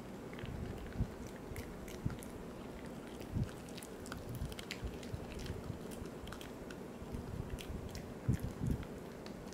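A poodle chewing a Virbac C.E.T. VegiDent dental chew: irregular crunches and clicks of teeth on the chew, with a few louder bites, the loudest near the end.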